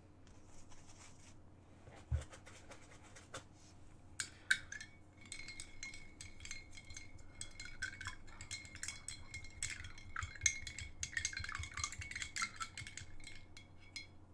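A paintbrush scrubbed and swished in a glass of rinse water, with rapid scraping and clinks against the glass. It starts about four seconds in, after a single knock, and stops just before the end.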